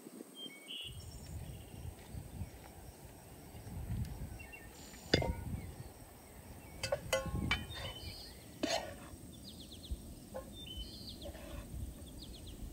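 Metal and enamel cookware being handled: a sharp knock about five seconds in, then several ringing clinks, as a bowl, a lid and a spoon meet the pot and pan. Birds chirp against a steady low background.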